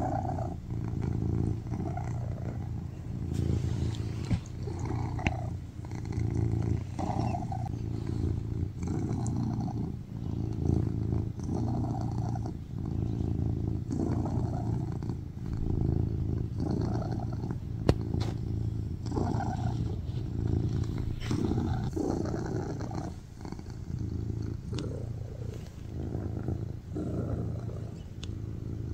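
Domestic cat purring loudly while being stroked: a steady low rumble that swells and dips with its breathing every second or two.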